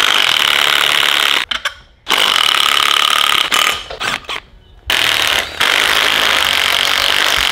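Impact driver hammering on the bolts of a transmission housing, running in three long bursts with short pauses between them. A steady high whine sits over the rattle.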